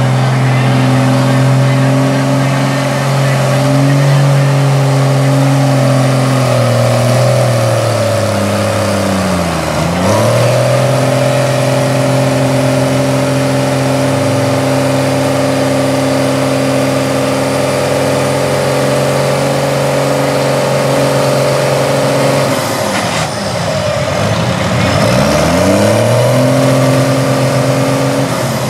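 Engine of a lifted Chevrolet mud truck on tractor tires, running loud and held at high, steady revs as it churns through deep mud. The revs drop sharply and climb straight back up twice, about ten seconds in and again near the end.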